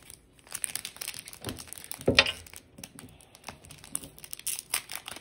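Plastic wrapper of a baseball card pack crinkling and tearing as it is pulled open by hand, in irregular crackles with one louder crackle about two seconds in.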